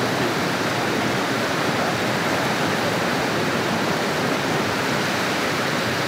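Rushing water of a rocky jungle stream and cascade at the Seven Wells falls, a steady, even rush with no breaks.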